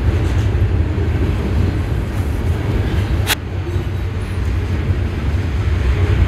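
A steady low rumble, with a single sharp metallic click about three seconds in as a timing idler gear is lifted off its shaft on the engine's front gear case.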